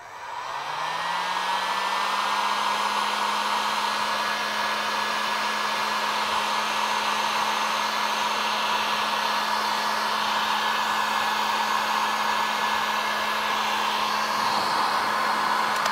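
Electric heat gun running: its fan motor spins up to a steady whirring hiss and winds down at the very end. It is blowing hot air to shrink heat-shrink tubing over spliced wires.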